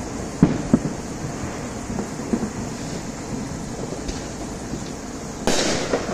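Neighbourhood fireworks going off at a distance: two sharp bangs about half a second in, a few fainter pops, and a half-second hissing burst near the end, over a steady background hiss.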